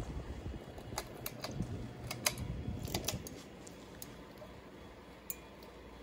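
A ceiling fan running on high with a steady low motor hum. Scattered light clicks and clinks come through, most of them in the first three seconds, while the fan wobbles.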